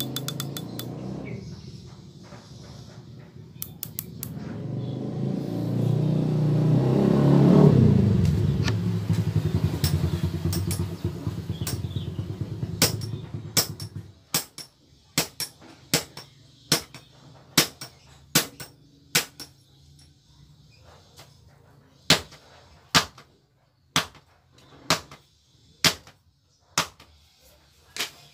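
A passing motor vehicle's engine rumbles, swelling to a peak about eight seconds in and fading away by about fourteen seconds. Then sharp, hard knocks repeat about once a second: a striking test of a serviced riflescope's resistance to vibration.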